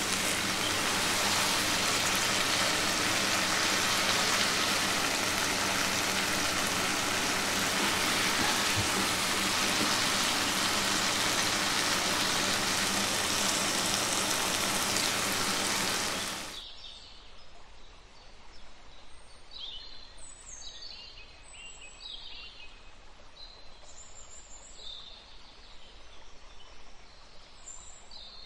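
Chole gravy bubbling and sizzling in a pan: a steady hiss that cuts off suddenly about two-thirds of the way through. After it come faint, short bird chirps.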